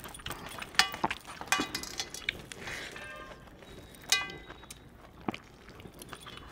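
A few sharp metallic clinks, some ringing briefly: metal finger rings and bracelets knocking against a steel thali plate as noodles are scooped up by hand.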